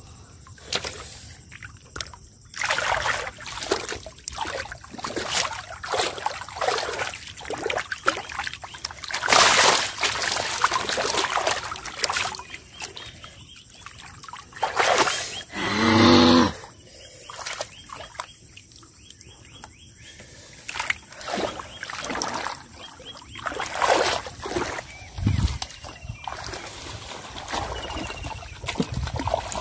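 Shallow muddy paddy water splashing and sloshing in irregular bursts as a big catfish is grabbed and held down by hand and waded through. A brief pitched, voice-like sound about halfway through.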